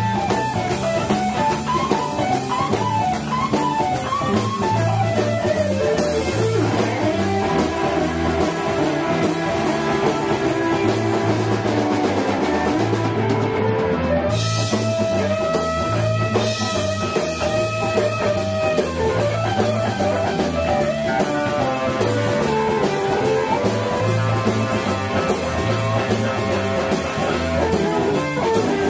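Live blues band: an electric guitar solo with long held, bending lead notes over drum kit and bass guitar. The treble drops out for a moment about halfway through.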